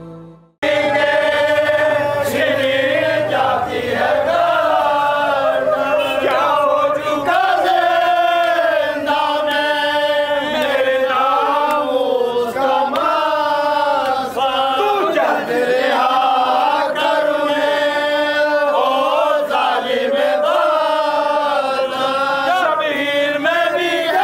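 A man chanting a marsiya, a Shia elegy for the martyrs of Karbala, in a long held melodic recitation. It cuts in suddenly about half a second in.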